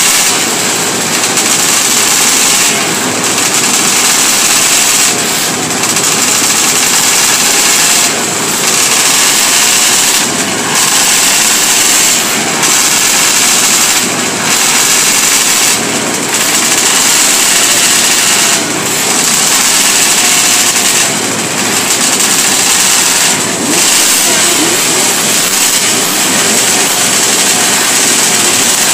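Several classic 500cc racing motorcycles, smoky two-stroke engines among them, revving hard together on a start line. Throttles are blipped up and down, with a brief drop in the noise every two seconds or so.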